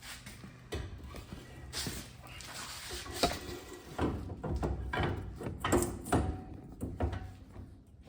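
Irregular metal clunks, knocks and scraping as a Dana 30 axle shaft with a new U-joint is worked back into the axle housing. The knocks come thickest a few seconds in.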